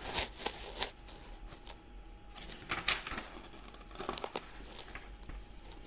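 Faint crackling with scattered sharp clicks. A faint, thin, steady high tone sits beneath it through the middle. No horn blast is heard.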